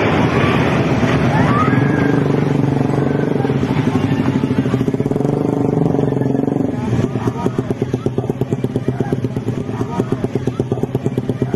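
A vehicle engine running close to the microphone amid the general noise of the scene, with onlookers' voices. About seven seconds in, the sound settles into an even, fast throbbing.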